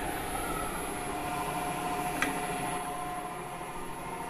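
Ellis 9400 floor drill press running, its variable-frequency-drive 2 hp motor giving a steady hum with a faint whine. A single light click about two seconds in.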